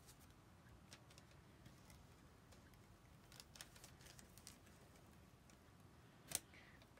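Near silence, with faint light taps and paper sounds from hands working a thin glassine treat bag while glue is run along its edge; one sharper click about six seconds in.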